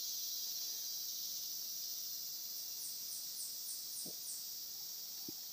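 Steady high-pitched insect chorus, with a run of short high chirps repeating about three times a second through the middle.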